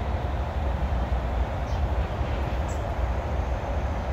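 Steady low rumble and hiss of wind buffeting the microphone.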